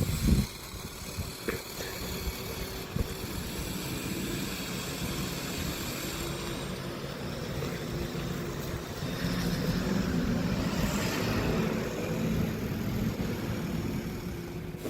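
A motor vehicle running, a steady rumbling noise that grows a little louder in the second half.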